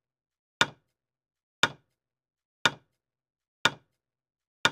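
Countdown timer sound effect: sharp clock ticks, one a second, five in all.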